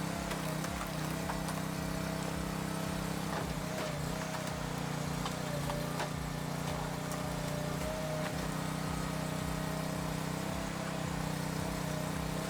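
Engine of a firewood-processing machine running steadily at an even speed, with a few light clicks.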